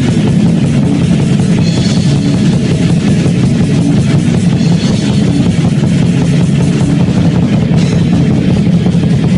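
Live heavy metal band playing loud: distorted electric guitar over a drum kit with cymbals, in one dense unbroken wall of sound.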